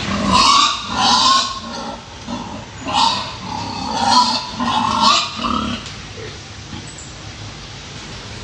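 Pigs calling loudly in two runs of short cries, one in the first second or so and another from about three to five and a half seconds in, then quieter.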